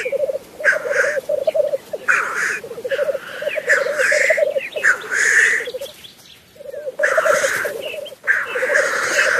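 Male black grouse lekking: the continuous bubbling, cooing rookooing song in phrases of fast pulsing notes, broken by harsh hissing sneeze calls. These are the males' display and threat calls to a rival on the lek. The calling drops off briefly about six seconds in, then resumes.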